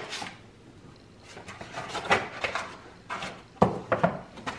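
Gift packaging being handled and opened: a run of short knocks, clicks and rustles, the sharpest about three and a half seconds in.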